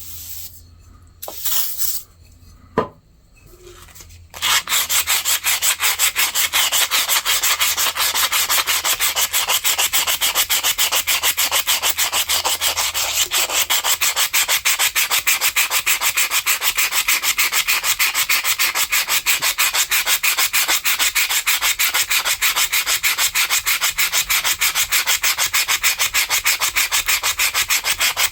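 A few handling clicks and knocks, then, from about four seconds in, rapid, even back-and-forth rubbing of an abrasive on the rusty steel of old hand shears, several strokes a second, as the surface rust is scrubbed off.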